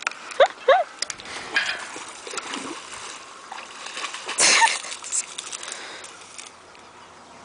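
Water splashing and sloshing as a Caucasian shepherd puppy paddles through a reedy creek, with a louder splash about four and a half seconds in. Two brief rising calls sound in the first second.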